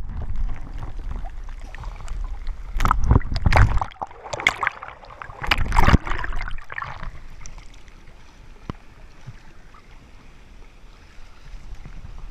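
Seawater surging and churning through a rock blowhole channel, with two loud rushing, splashing surges a few seconds in, then settling to a quieter steady wash.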